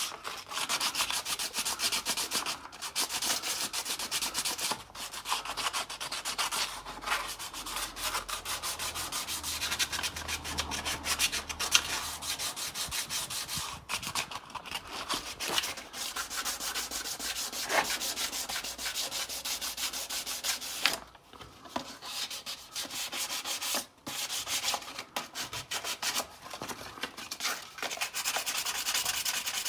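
Coarse 240-grit sandpaper rubbed by hand over a Porsche 996 brake caliper to strip the old peeling lacquer and paint. It is a rapid back-and-forth scraping that keeps going, with brief pauses now and then.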